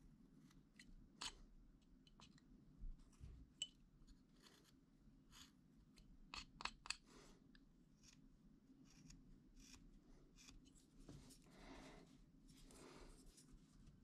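Faint, sporadic hand-cutting sounds: sharp clicks through the first half, the loudest about seven seconds in, then two longer scraping strokes near the end, as a blade works through the material.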